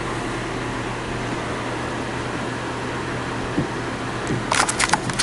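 Ceiling fan running with a steady whir and low hum. A quick run of sharp clicks comes near the end.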